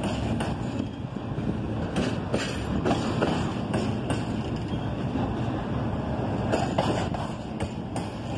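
Freight train's double-stack intermodal well cars rolling past: a steady rumble of steel wheels on the rails, with several sharp clicks.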